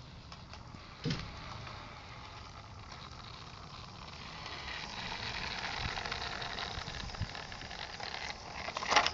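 LGB garden-scale model train running through snow, a rattling, crunching noise that grows louder through the middle, with a sharp knock about a second in and a louder clatter near the end.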